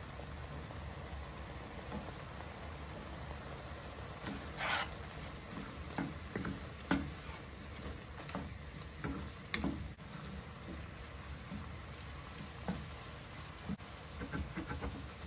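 Minced meat with onion and garlic sizzling steadily in a frying pan, with a wooden spoon scraping and knocking against the pan in short clicks from about four seconds in as spices are stirred through.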